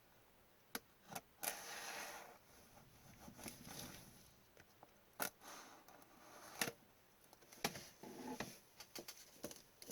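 Faint handling of trading card packaging: rustling and crinkling of a pack wrapper, with a few sharp clicks.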